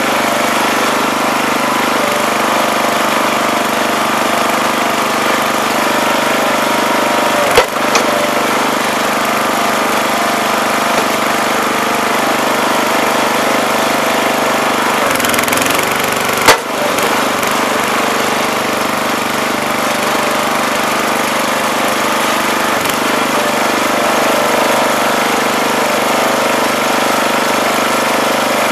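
Wood splitter's small 5 hp gas engine running steadily as it drives the new two-stage hydraulic pump through tough oak. Two sharp cracks as the wood splits under the wedge, one about a third of the way in and one just past halfway. The engine note shifts briefly just before the second crack.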